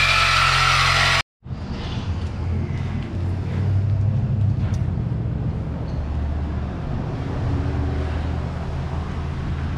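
Cordless reciprocating saw running steadily as it cuts through the exhaust pipe to remove the mid mufflers. It cuts off abruptly about a second in, and a low, steady shop rumble with a few faint clicks follows.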